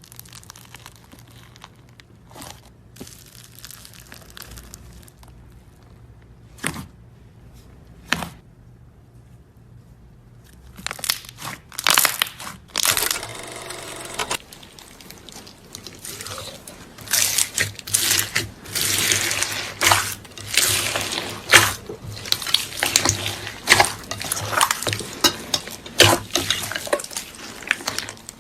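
Slime being squeezed and pressed, making sticky crackling pops and squelches. It is quiet at first, with only a couple of sharp clicks, then turns into a dense, busy crackle from about a third of the way in.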